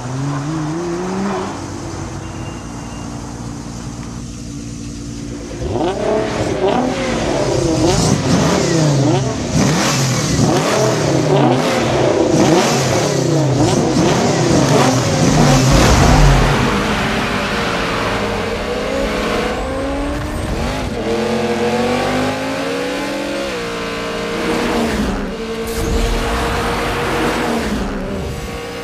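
Car engines revving again and again, their pitch rising and falling. The revs are quieter for the first few seconds, then several overlap and grow louder from about six seconds in.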